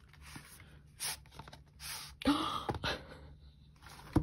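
Album packaging being handled: several short scraping rustles of paper and cardboard as a stuck item is worked out of the album, with a sharp click at the very end.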